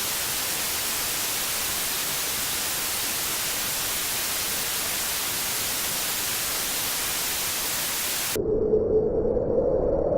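Steady hiss of broadcast static, the dead-air noise of a station that has gone off the air. It cuts off suddenly about eight seconds in and gives way to a low rumbling noise.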